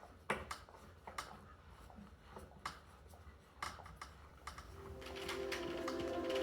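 Scattered light clicks and taps, irregular and quiet, of small hard objects being handled. Music fades in over the last second or two.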